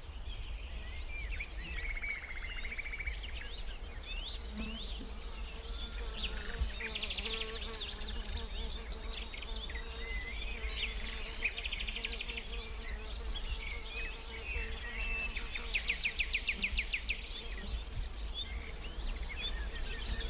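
Summer outdoor ambience: small birds chirping, with several quick trills, over a steady buzz of insects.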